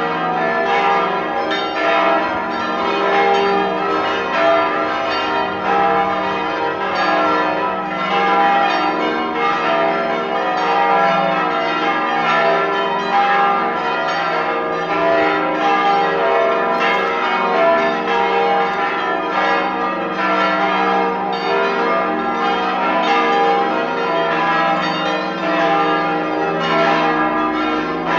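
Full peal of church bells: all the bells rung together, their strokes overlapping in a continuous, dense clangour with no pause. The ringing calls the faithful to a service starting in fifteen minutes.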